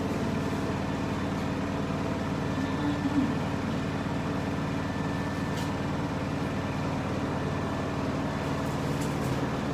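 A steady low mechanical hum, even throughout, with a faint click or two.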